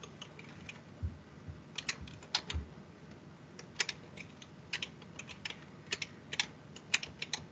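Computer keyboard keys clicking in quick, irregular taps, several a second.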